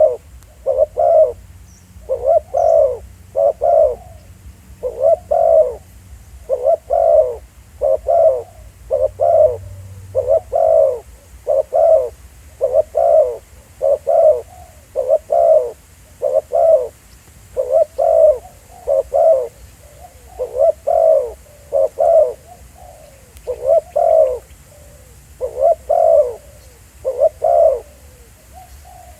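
Spotted doves cooing over and over: short, low coo notes in quick pairs and triplets, with one cluster about every second and no letup.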